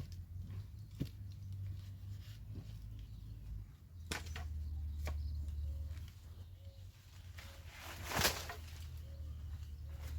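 A few sharp knocks and a louder scraping thud about eight seconds in, over a low rumble. A dove coos faintly and repeatedly in the second half.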